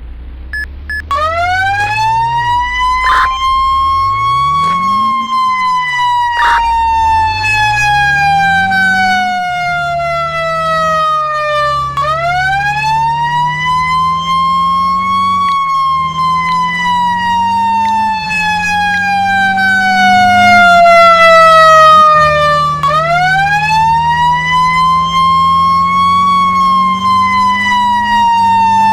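Fire engine siren wailing in slow cycles: each cycle rises over about three seconds, then falls slowly for about seven, three times over. A low, steady truck engine note runs underneath.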